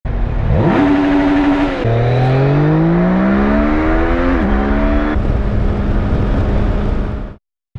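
Yamaha Niken GT's 847 cc three-cylinder four-stroke engine pulling hard through the gears, revs climbing with a drop at each upshift about two and four and a half seconds in, then holding steady at high speed with wind rush on the microphone. The sound cuts off just before the end.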